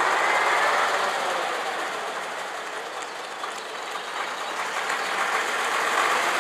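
Vintage AEC double-decker bus's diesel engine running as it drives up, getting louder toward the end as it comes close.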